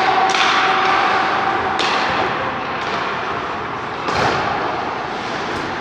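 Ice hockey game sounds in a rink: a steady din of skating and play, broken by several sharp clacks and knocks of sticks, puck and boards. The loudest is a thud about four seconds in.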